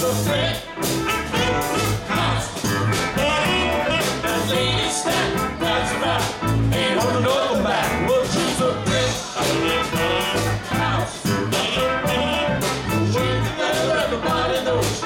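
Live rock band playing to a steady beat, with a woman singing lead over electric guitar, electric bass, a Korg keyboard and drums.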